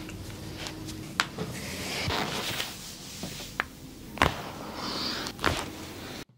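Rubbing and scratching noises with a few sharp clicks.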